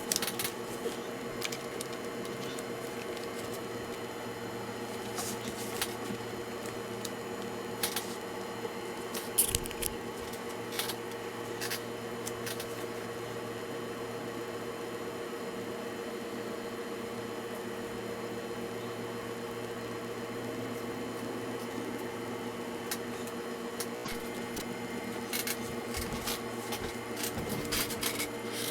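Scattered small clicks and taps, as of hands handling a laptop's plastic casing and parts, over a steady hum; the clicks come thicker near the end.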